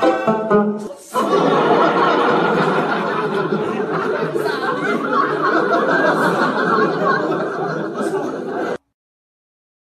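Plucked-string music for about a second, then a group of people laughing loudly and continuously, cut off abruptly near the end.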